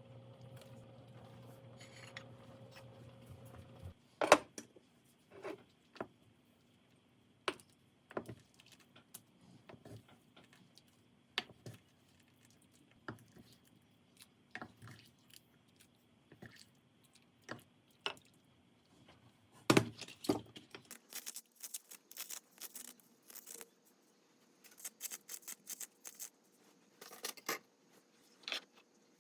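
Scattered clicks, taps and clinks of tableware and utensils being handled, with a steady low hum during the first four seconds.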